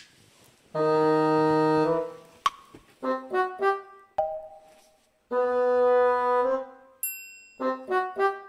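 Background music: long held notes alternating with quick runs of short notes, with a brief high ringing tone about seven seconds in.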